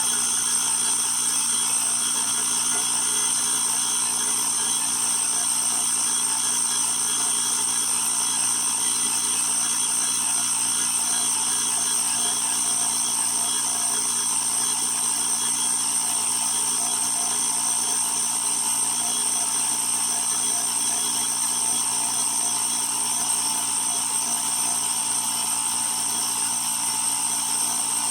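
Small electric motor of a portable tyre air compressor running steadily with a constant high-pitched whine.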